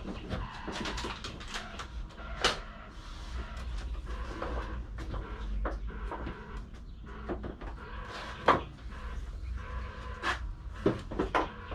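Irregular clicks and knocks of tools and parts being handled, the sharpest about two and a half seconds in and again around eight and a half seconds.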